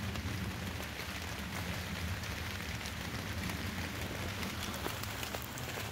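Steady rain falling on forest foliage, many small drops ticking close by, over a low steady rumble.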